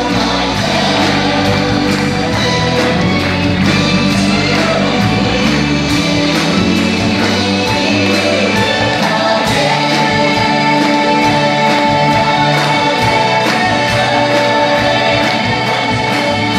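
Live band and massed singing cast performing a full-company number, voices together over drums keeping a steady beat.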